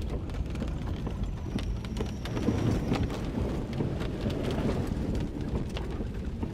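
Rain pattering in scattered drops and taps over a steady low rumble.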